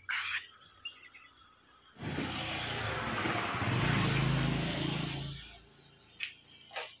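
A motor vehicle passing on the road: engine hum and tyre noise come in about two seconds in, build to a peak near the middle and fade away before the end.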